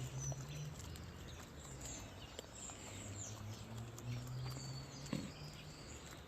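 Chickens clucking low and softly among themselves, with scattered high chirps and a few short clicks and patters.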